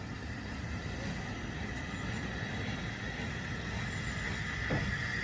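LMS Jubilee class 4-6-0 steam locomotive moving slowly, with a low rumble and a steady high hiss that grows louder near the end. A single short knock comes about four and a half seconds in.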